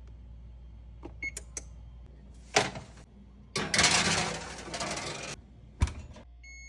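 Kitchen oven being handled over the steady hum of its fan: a few clicks, a sharp knock, a rush of noise lasting about two seconds, another sharp knock, then a short electronic beep near the end.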